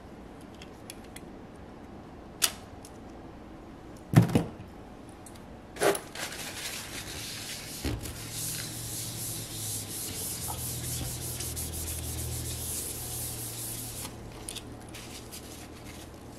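Paper towel wiping and rubbing steadily for several seconds, with a few sharp knocks of small objects being set down on the mat before it, the loudest about four seconds in.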